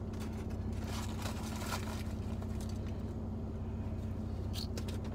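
Steady low hum inside a car cabin, from the idling engine and the air conditioning running, with a few faint rustles and clicks.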